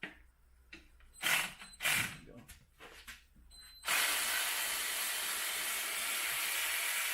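Hand ratchet on a front subframe mount bolt: two sharp metallic clicks, then from about four seconds in a steady continuous ratcheting as the bolt is wound out.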